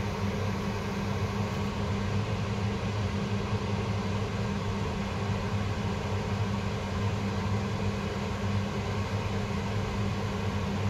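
Battery charger running in its pulse repair mode: a steady low electrical hum with a hiss over it.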